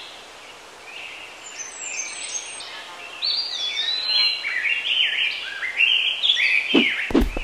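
Outdoor birdsong ambience: many small birds chirping in quick rising and falling notes over a steady background hiss, building up from about a second in. A couple of low thumps near the end.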